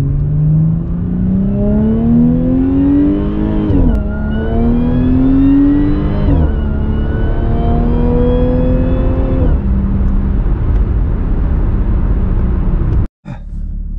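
Audi S4's supercharged V6 accelerating hard, heard from inside the cabin: engine note and a high supercharger whine rise together, drop sharply at two upshifts about four and six seconds in, and fade as the pull eases after about nine and a half seconds. The engine breathes through an Integrated Engineering open-box intake.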